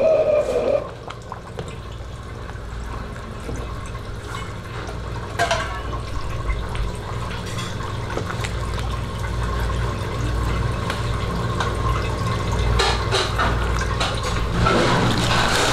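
Thick soup bubbling and sloshing in a wok over the steady low rumble of a gas wok burner, with a metal ladle stirring and clinking against the wok a few times. A louder rushing sound cuts off just under a second in.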